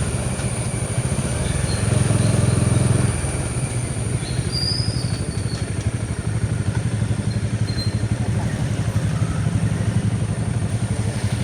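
Bajaj Dominar 400's single-cylinder engine running while riding, louder from about two to three seconds in, then settling to a steady pull.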